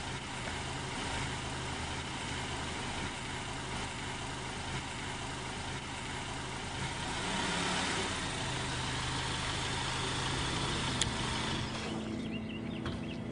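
Car running, with steady engine hum and road noise that swell a little partway through, then ease off near the end as the car slows to a stop.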